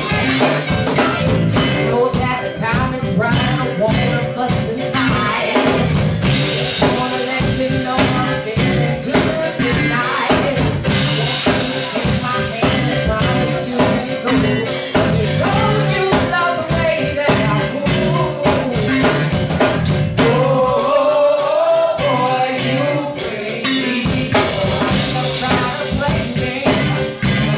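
Live soul band playing: a singer over drum kit, electric bass guitar and keyboard.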